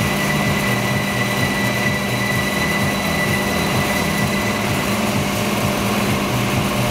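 Hydraulic drive of a CNC four-roll plate rolling machine running with a steady hum while its hydraulic side support arm is raised, with a faint high whine above the hum.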